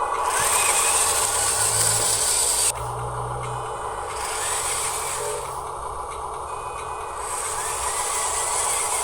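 Small electric motors and plastic gearboxes of radio-controlled construction models running in stretches, with a high whine that starts and stops every couple of seconds over a steady grinding noise.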